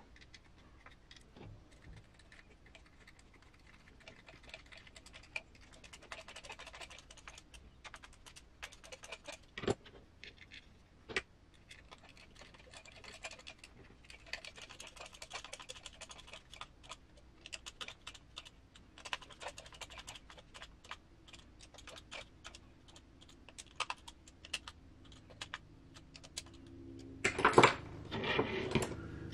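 Small, irregular clicks, taps and light scraping of screws, nuts and plastic parts being handled and screwed together with a hex driver, as a transmission is fastened down on a kit-built RC rock crawler. Near the end there is a louder clatter.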